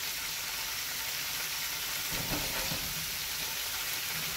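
Tofu cubes frying in a pan, sizzling steadily while a spatula stirs and turns them. The tofu is still boiling in the water it has released rather than searing.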